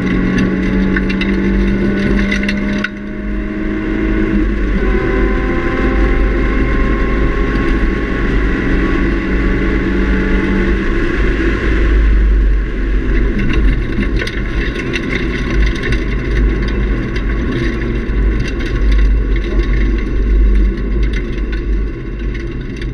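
Heard inside the cabin, a 2003 Nissan 350Z's 3.5-litre V6 with a Nismo cat-back exhaust pulls hard with its pitch climbing. A short break about three seconds in marks an upshift, and then the pitch climbs again. From about twelve seconds in the engine tone fades back into a steadier mix of engine, road and wind noise.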